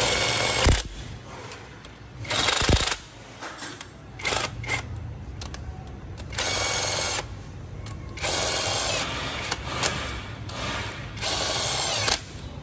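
Handheld power tool running in short bursts of under a second, about five times, with tool clinks between them: bolts being run in while the engine is reassembled.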